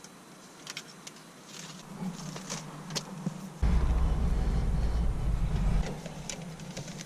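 Handling noise from lacing string being wrapped and pulled around a steering wheel cover: scattered light clicks and rustles. A low rumble comes in about halfway through and stops about two seconds later.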